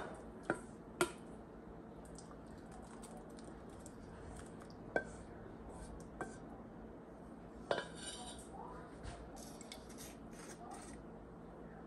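Wooden spoon and stainless-steel saucepan knocking and scraping as cooked oats are spooned out into a ceramic bowl: several sharp knocks, then a run of lighter scraping and clicking near the end.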